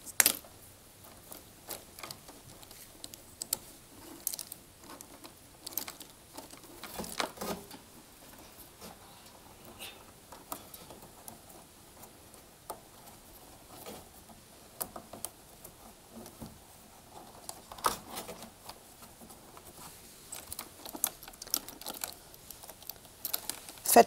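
Electrical wires and plastic connectors being handled and pushed into a tumble dryer's plastic cable clips: scattered light clicks and rustling.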